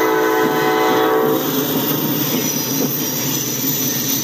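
Diesel freight locomotive's air horn sounding a steady chord that cuts off about a second and a half in. The engine and wheels then rumble past close by.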